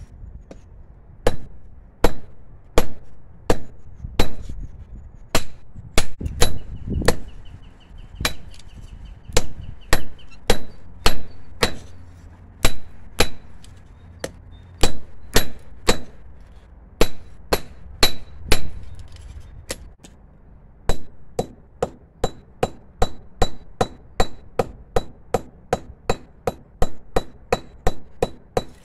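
Hand hammer striking red-hot steel from an old file on an anvil: a long series of sharp metallic blows, each with a high ring, drawing the end of the bar out into a taper. The blows come in short, unhurried runs at first and quicken to a faster, steadier rhythm in the last third.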